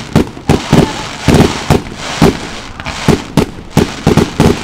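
Fireworks going off in quick succession: an uneven string of sharp bangs and pops, about three a second, as shots launch and burst.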